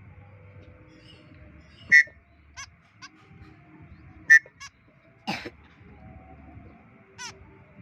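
White-breasted woodswallow (kekep) giving short, sharp, harsh calls: two loud ones about two seconds apart, a longer rasping one just after, and fainter chips around them.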